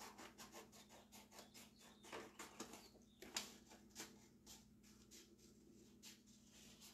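Faint, irregular snips of scissors cutting through a paper transfer sheet, with light paper rustling and a couple of sharper snips in the middle.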